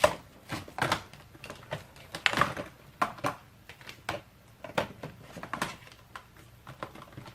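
Irregular clicks and light knocks of hard plastic parts of a Dyson Ball Animal 2 upright vacuum being handled and fitted together.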